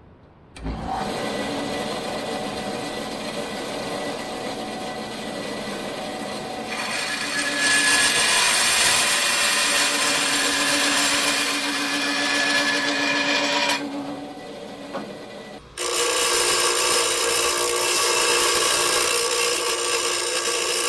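Band saw running and cutting through a metal tube, with a louder, hissing rasp for about seven seconds in the middle while the blade is in the metal. Then, after a sudden change about three-quarters through, a JET bench grinder runs steadily with the tube end held against its wheel to square off the cut.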